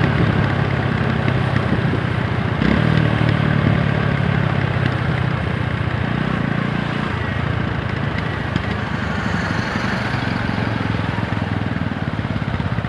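TVS Apache 160 4V motorcycle's single-cylinder engine running steadily under way. It is strongest through the first seven seconds or so, then eases off to a lower, quieter run.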